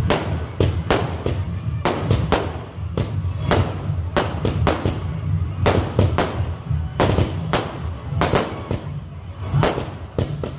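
Aerial fireworks bursting in quick, irregular succession: a running string of sharp bangs and crackles.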